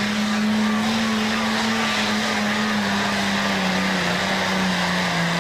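Super stock pulling tractor's turbocharged engine at full throttle under heavy load, pulling the sled with its front wheels up. The engine note holds steady and high, then sags slightly near the end as the load builds.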